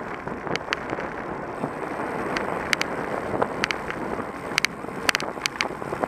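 Wind rushing over the microphone of a camera mounted on a moving road bike, with tyre noise on asphalt and irregular sharp clicks and rattles.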